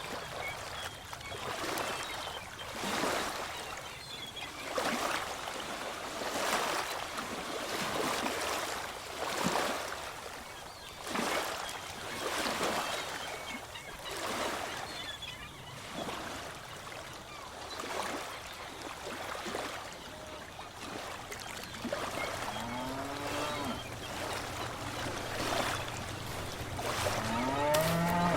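Ocean waves washing in, swelling every second or two. Near the end, a few low calls slide up and down in pitch over the surf.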